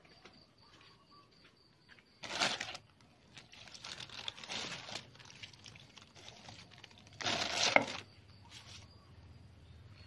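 Clear plastic sheeting crinkling as it is handled, with two loud bursts of crinkling, about two seconds in and again near eight seconds, and softer rustling between.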